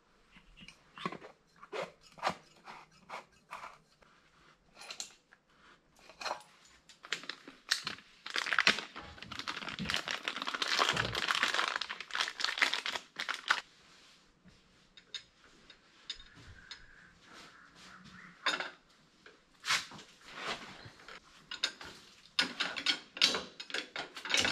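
Hand work on the tractor: scattered clinks and knocks of metal parts and tools, with about six seconds of crinkling packaging in the middle.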